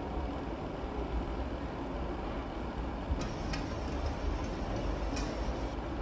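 Tap water running into a stainless steel sink while a steel plate is scrubbed and rinsed under the stream, over a steady low rumble. From about three seconds in the splashing gets brighter, with a few light metal clinks of the plate against the sink.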